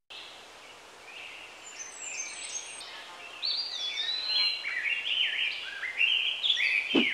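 Birdsong: many short chirps and warbles from several birds over a steady outdoor hiss, getting louder about three and a half seconds in. A low thump comes right at the end.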